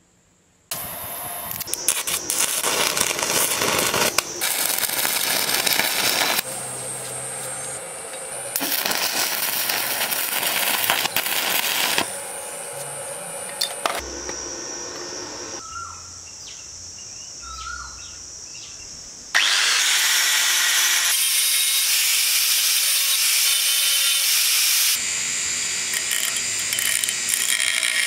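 Loud, rough metalworking power-tool noise in several segments that change abruptly every few seconds. Near the end a bench grinder's wheel grinds the end of a metal pipe.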